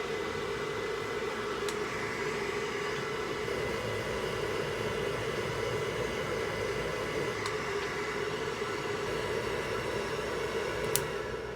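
Hair dryer blowing steadily, with a sharp click near the end, after which the sound drops away.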